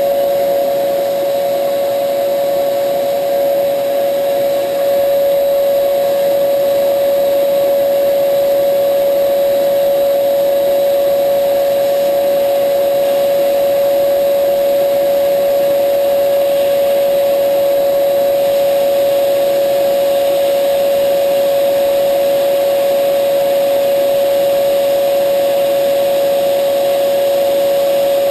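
Steady, loud motor whine over a hiss of rushing air, unchanging throughout: typical of a shop vacuum running while milling.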